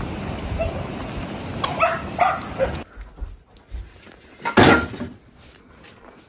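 A dog barking several short times in the first three seconds, over outdoor background noise. After that comes one loud knock of firewood being handled at a wooden log box.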